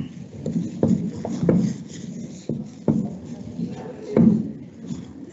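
Handling noise close to the microphone: a series of sharp knocks and clatters with rubbing and scraping between them, as objects are moved about on a desk.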